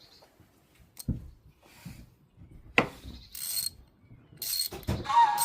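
Hand ratchet clicking in short bursts, with a sharp tool knock, as bolts are undone to remove the coil packs. Music comes in near the end.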